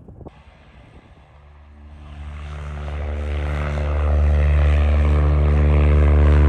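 Light single-engine propeller aircraft's piston engine and propeller droning at a steady pitch. It swells from faint to loud over about three seconds, then holds steady.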